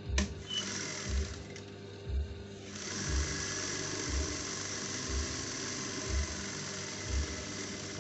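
Juki industrial sewing machine running steadily as fabric is stitched, starting about three seconds in after a brief run near the start. Background music with a slow, steady beat about once a second plays throughout.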